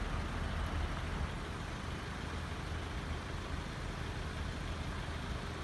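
Steady low engine rumble from vehicles idling at a level crossing, over an even background hiss, with no distinct events.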